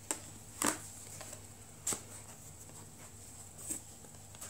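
Light handling of a cardboard phone box and its inner accessory boxes: four short taps and knocks as the pieces are set down and touched, the loudest a little under a second in.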